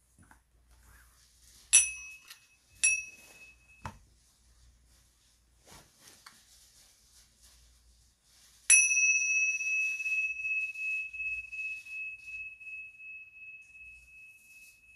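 Tingsha cymbals struck together. Two short clear rings about a second apart are each cut short, then near the middle a strike rings out with a high pure tone that fades slowly, its level wavering as it dies away.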